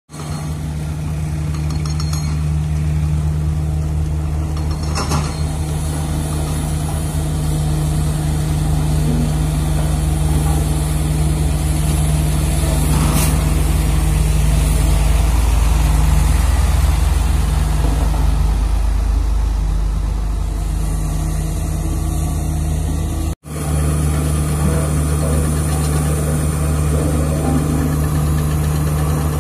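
Heavy diesel engines of dump trucks and a single-drum road roller running steadily at close range, a continuous low drone with a steady hum. The sound breaks off for an instant about two-thirds of the way through.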